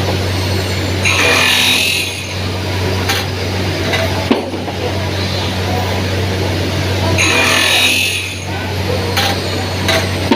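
Milling machine running with a steady low motor hum, and two spells of higher hissing, rasping noise about a second in and again about seven seconds in, with a sharp click in between.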